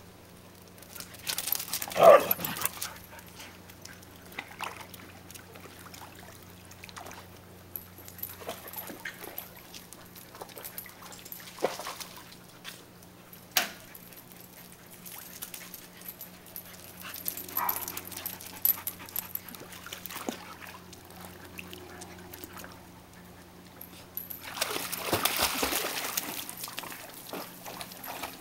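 Huskies vocalizing now and then, the loudest cry about two seconds in. Near the end comes a couple of seconds of splashing water as a husky goes into the pool.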